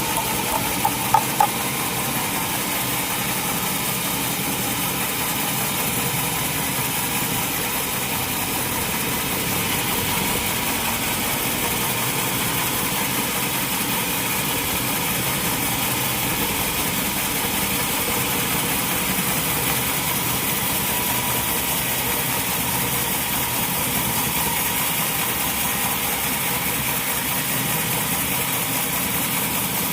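Sawmill machinery, a saw with its driving engine, running steadily. There are a few short sharp clanks about a second in.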